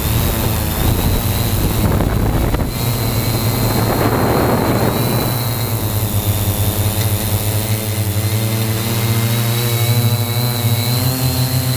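3DR Y6 hexacopter's six motors and 15-inch propellers running steadily in flight: a steady low hum with a thin high whine above it. Brief rushes of noise come about two seconds in and again around four to five seconds in.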